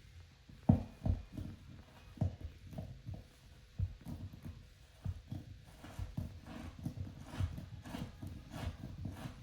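A run of irregular low knocks and thumps, the loudest a single sharp knock about a second in, coming faster and more evenly in the second half.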